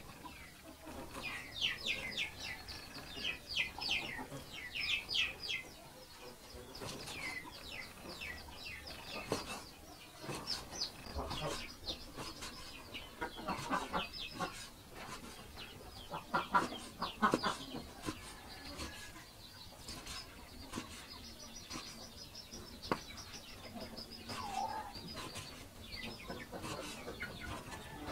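Meat cleaver chopping raw pork on a wooden chopping block, an irregular run of knocks that is loudest a little past the middle. Birds, chickens among them, chirp and cluck in the background, with quick trills of chirps in the first few seconds.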